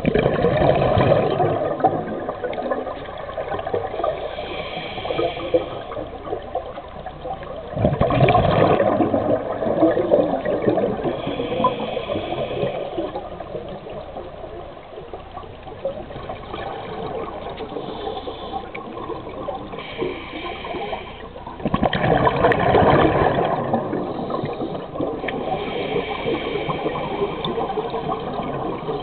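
Underwater scuba breathing through a regulator. Loud rushing bursts of exhaled bubbles come at the start, about eight seconds in and about twenty-two seconds in, with shorter, higher hissing inhalations that carry a whistling tone in between.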